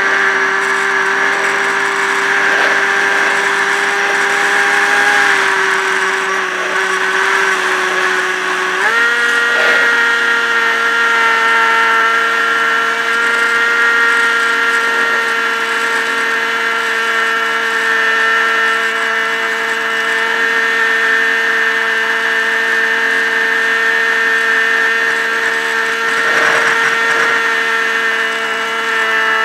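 Electric motor and propeller of a Multiplex EasyStar RC plane, heard from a camera on board, running with a steady whine. About nine seconds in the pitch jumps up as the motor speeds up, and then holds at the higher note.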